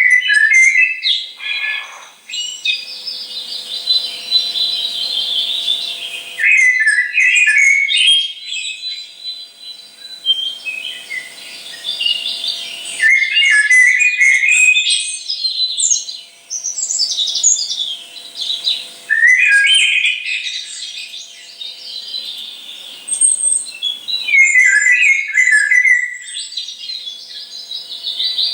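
Recorded barn owl calls played loudly through a speaker: clusters of high chirping and twittering calls, each a few seconds long with short gaps between, starting abruptly.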